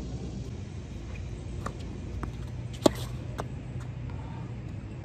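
A tennis ball bounced on a hard court several times, about five light taps a little over half a second apart, the loudest about three seconds in, over a low steady background hum.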